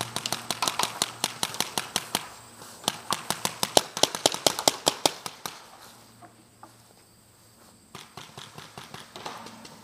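Paintball markers firing in rapid strings of sharp pops: two long volleys through the first five and a half seconds, then a few scattered shots near the end.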